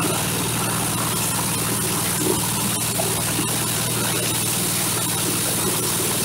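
Corn husker-sheller machine running steadily under load, its small engine and threshing drum giving a constant drone while it strips and shells corn cobs.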